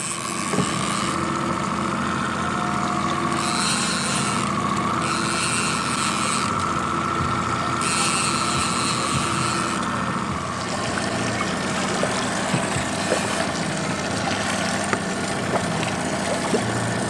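Boat's outboard motor running steadily at trolling speed, with a wavering whine over its hum for the first ten seconds or so, while a fishing reel is cranked to bring in a hooked kokanee.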